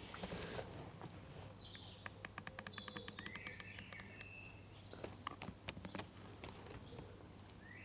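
Rifle scope's windage turret being dialled: a quick, even run of about twenty clicks over two seconds, starting about two seconds in, followed by a few scattered clicks. Birds chirp now and then.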